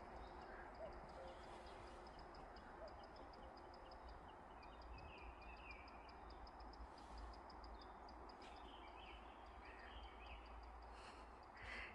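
Quiet rural outdoor ambience with distant birdsong: a faint high trill of rapid ticks running through most of it, and a few brief chirps, over a low steady rumble.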